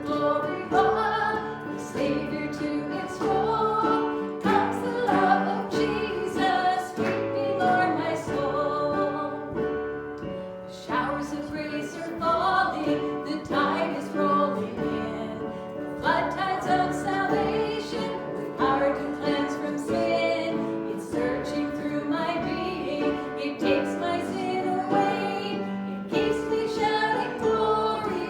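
A worship song: singing, led by a woman's voice, over steady instrumental accompaniment.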